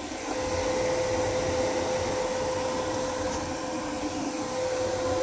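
Inverter TIG welding machine running steadily: its cooling fan gives an even rushing hiss with a constant whine.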